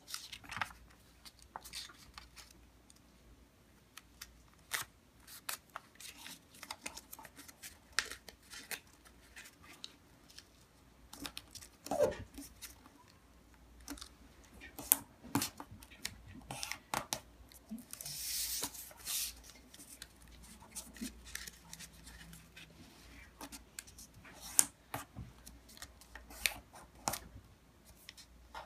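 A sheet of white paper being folded and creased by hand on a tabletop: scattered crisp rustles and sharp crackles as the folds are pressed flat, with a longer rustle about two-thirds of the way through and one brief squeak near the middle.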